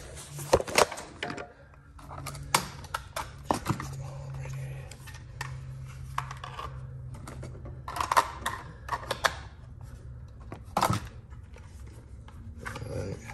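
Hard tools and gear clattering and knocking as they are picked up and moved around in a cluttered tool chest, in irregular clicks and clunks over a low steady hum.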